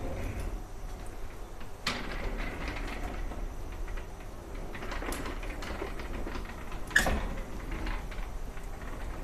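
Framed tile display panels on a swing-panel showroom rack being swung aside one after another, with a few sharp clacks and knocks as the frames move and meet; the loudest knock comes about seven seconds in. A steady low hum runs underneath.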